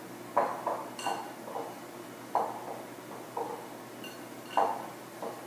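Fresh blueberries being stirred with flour in a glass mixing bowl. Irregular soft knocks and shuffles as the berries tumble against the glass, with a couple of faint clinks.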